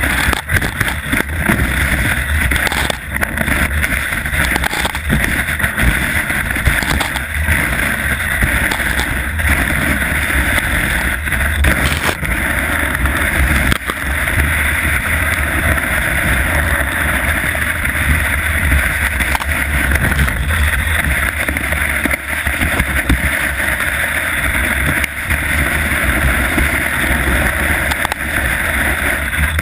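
Rossignol skis hissing and scraping over snow on a fast downhill run, under a steady low rumble of wind on the camera microphone.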